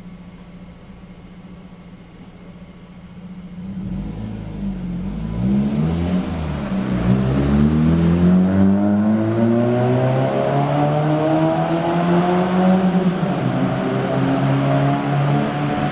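Nissan K11 Micra's inline-four engine through an aftermarket exhaust (performance manifold, B-Cruise centre pipe and rear silencer): it idles steadily, then about four seconds in the engine speed climbs slowly over several seconds, holds high and eases back a step near the end.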